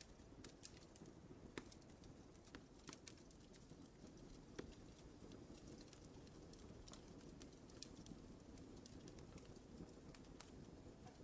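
Wood fire crackling in a fireplace, quiet: a steady low rush of burning with scattered, irregular sharp pops and snaps.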